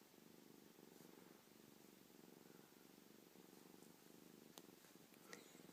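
Five-week-old kitten purring faintly and steadily as it is stroked, a fine, even, pulsing rumble.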